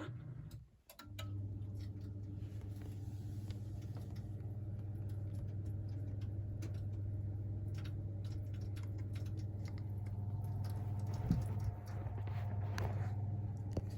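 Vaillant gas boiler starting up after a reset: a steady low hum begins about a second in and keeps running, with light clicks throughout and a single thump late on. The boiler, which had been failing to ignite, comes back into operation.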